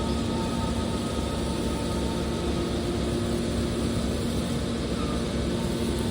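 Aluminum can baler running: a steady machine drone with a constant low hum that holds the same pitch throughout.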